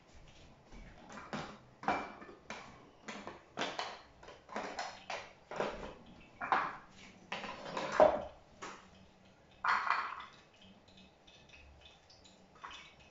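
Bowls and kitchen utensils clinking and knocking on a countertop as they are handled, a loose run of short clatters about twice a second, the loudest coming about two-thirds of the way through.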